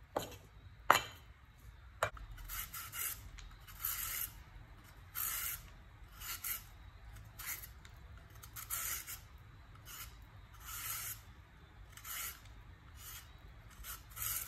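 Three chops of a cleaver on a wooden cutting board in the first two seconds, the second the loudest. Then a julienne peeler drawn down a raw carrot, shredding it into thin strips, about one scraping stroke a second.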